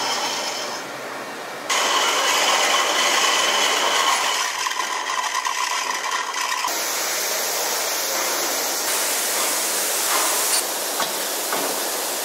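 A large metal lathe turning a big steel ring, its cutting tool scraping off chips: steady, noisy machining sound that changes abruptly in tone a few times, about two seconds in, near seven seconds and near nine seconds.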